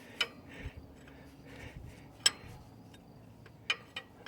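A few sharp, isolated metallic clicks of a wrench and tools on metal fittings in a truck's engine bay, with soft heavy breathing between them.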